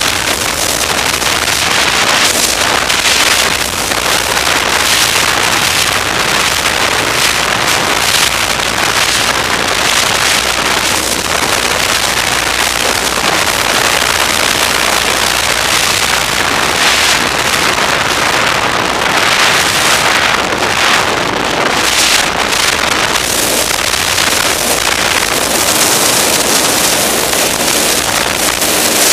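Snowmobile running at speed, its engine and track noise steady under heavy wind rushing over the microphone.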